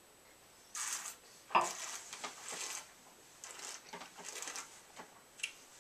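A person tasting white wine, slurping it and drawing air through it in the mouth: a hissing slurp about a second in, then several shorter slurping, swishing sounds as the wine is worked around the mouth. A light tick near the end.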